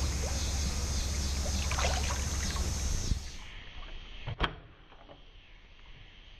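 Lake water splashing and sloshing as a man in the water hauls up a channel catfish on a stringer, going quieter about three seconds in; a little after four seconds a single sharp thud as the catfish lands on the wooden dock boards.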